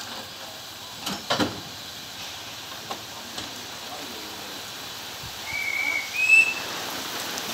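Narrow-gauge steam locomotive of class 99.73 hissing steam from around its cylinders as it moves slowly, with rain. A couple of sharp knocks about a second in and two short high tones in quick succession near the end.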